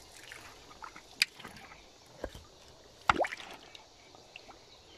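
A few small water drips and plops in a shallow stream pool, over a faint background. The loudest, about three seconds in, ends in a short rising plink.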